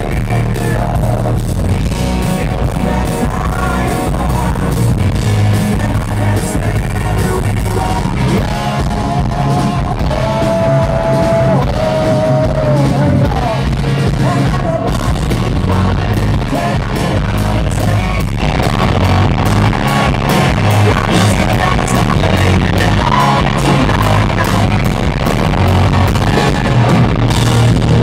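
Live hard rock band playing loud, heard from within the audience: electric guitars, bass and drum kit behind a male lead vocalist singing.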